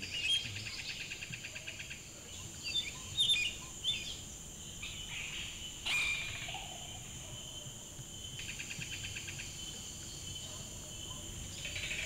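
Amazon rainforest ambience: a steady high insect drone, with a rapid pulsing trill near the start and again in the second half. Several short bird chirps and calls come in the first half, and there is one sharp click about halfway.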